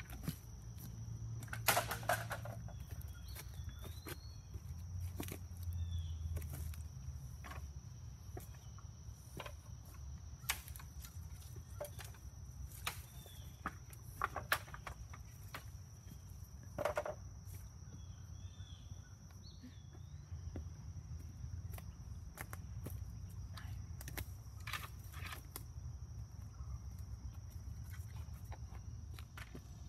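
Dry wooden sticks knocking and clattering against each other and a tree trunk as they are stood up one by one, sharp knocks at irregular intervals. Birds chirp briefly now and then over a steady high-pitched hum.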